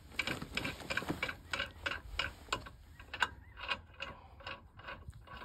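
Regular sharp clicking, about three clicks a second, thinning out and fading after about four seconds.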